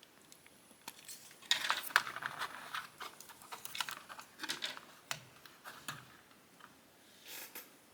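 Small plastic model-kit parts clicking and rattling as the snap-fit figure and its display stand are handled. The light clicks and rustles come in quick clusters, beginning after about a second and a half of quiet, with one more short burst near the end.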